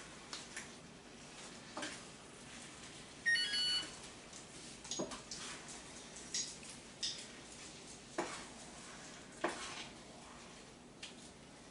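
Light, scattered knocks and scrapes of a utensil stirring in a pot of orzo and broth. About three seconds in, a short electronic chime of several notes sounds for under a second.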